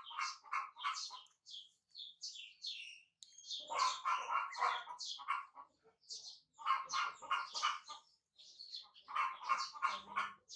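Baby monkeys making high-pitched chirping squeaks in short, rapid bouts, four times.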